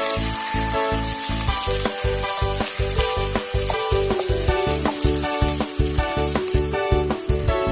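Background music with a quick, steady beat, over the steady sizzle of food frying in a pot.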